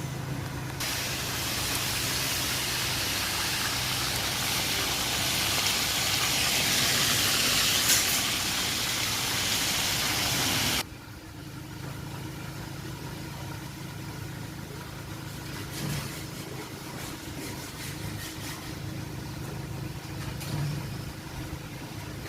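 Fish frying in hot oil over a coal stove: a loud, even sizzle that cuts off abruptly about eleven seconds in. After that, a quieter steady low hum with a few faint ticks.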